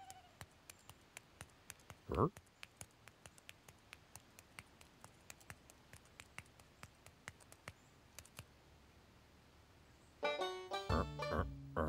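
Light footsteps on gravel, small clicks about two or three a second, with one short rising-pitched squeak about two seconds in. Near the end, plucked banjo music starts.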